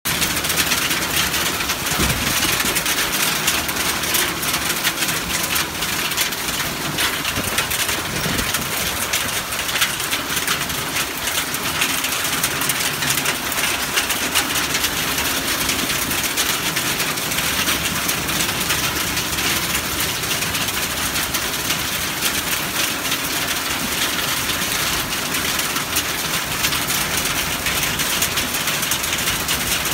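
Hail falling with heavy rain: a dense, steady patter of small hailstones and raindrops striking the ground and pavement.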